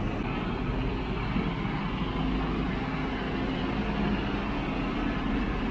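Liebherr LTM1300-6.2 all-terrain crane's diesel engine idling steadily, an even low hum.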